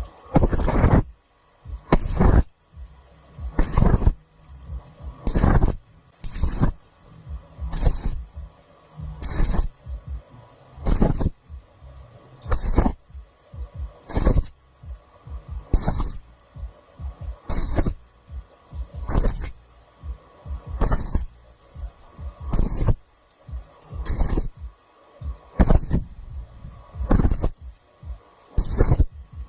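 Background music with a slow, steady thumping beat, one beat about every second and a half, over a faint held tone.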